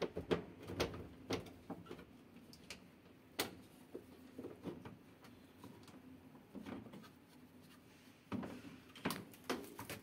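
Plastic clicks and knocks as the control-panel cover of an LG top-loading washing machine is prised loose with a screwdriver and lifted. There are several in the first second or so, one alone a few seconds in, and a cluster near the end.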